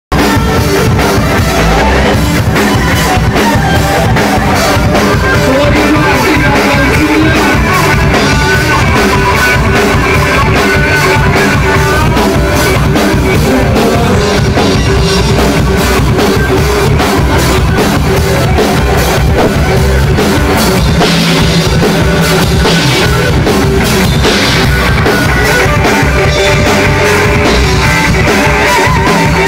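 Live rock music: a Stratocaster-style electric guitar playing a solo over a drum kit, loud and dense throughout.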